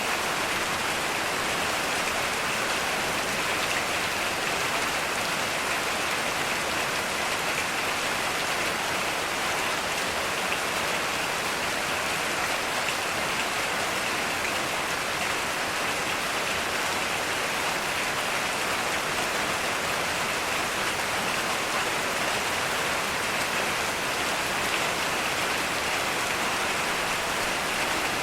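Heavy rain falling steadily in an even hiss, with no thunder.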